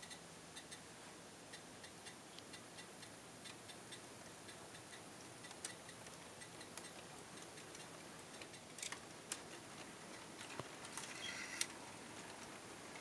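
Faint, uneven ticking of HO-scale model train wheels clicking over the rail joints as the cars roll along the layout, a few clicks a second, with one louder click near the end.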